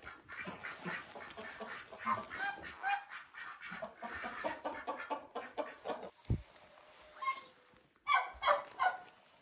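Domestic white goose honking and chattering in short repeated calls, loudest near the end, with a dull thump about six seconds in.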